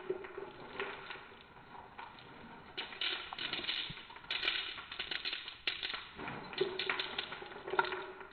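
Small hard-shelled candies clattering and clicking as the hand-cranked plastic auger of a PVC-pipe snack shooter pushes them through and out of the tube, in an irregular crackling patter that is busiest in the second half.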